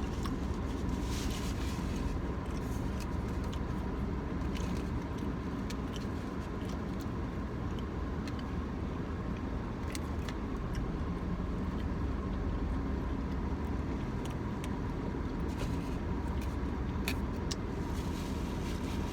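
Steady low rumble and faint hum inside a car cabin, with a few light clicks and taps scattered through it.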